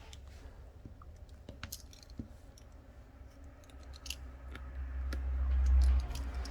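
Crinkly clicks and crackles of double-sided adhesive strip being peeled, laid and pressed onto a phone frame. A low rumble of hands on the work swells from about four seconds in and is loudest near six seconds.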